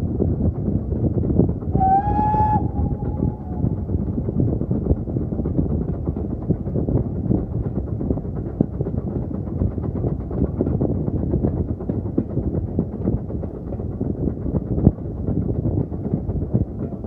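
Heritage steam train running with a steady rumble and fine clatter, and a short steam whistle blast about two seconds in.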